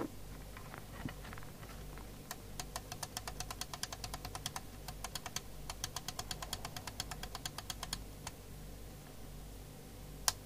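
A knock as the CB radio is set down, then a front-panel rotary switch on a York JCB863 CB radio clicked quickly through its detent positions, about eight clicks a second for roughly five seconds, and a single click near the end.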